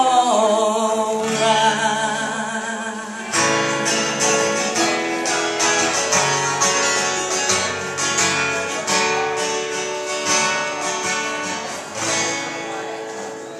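Strummed acoustic guitar playing the closing chords of a folk song, getting quieter toward the end. A singer's last held note dies away about half a second in.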